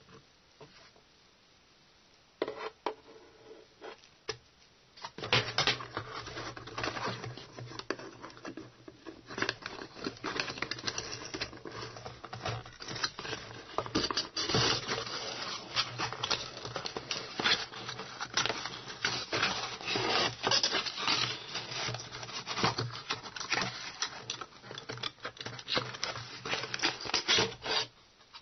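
Cables and cardboard packaging handled by hand: irregular rubbing, scraping and clicking as a USB cable and an AC adapter with its cord are pulled out of the box. Only a few clicks for the first five seconds or so, then the handling runs on busily.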